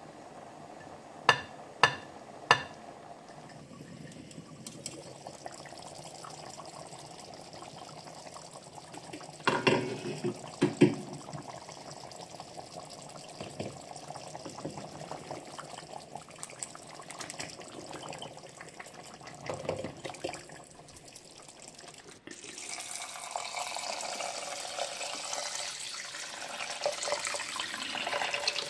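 A pot of stew simmering with a low bubbling, and a spatula knocking sharply on the pot three times near the start and a few more times about ten seconds in. About two-thirds of the way through, it gives way to a saucepan of rice boiling hard and being stirred, a louder, busier bubbling hiss.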